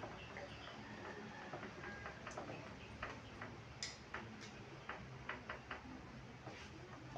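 Faint, irregular clicks and taps of chess pieces being set down and chess clocks being pressed, a dozen or so with no steady rhythm.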